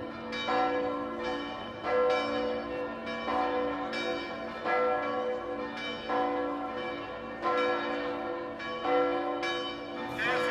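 Church bells ringing: several bells struck one after another at a steady pace, each stroke ringing on into the next.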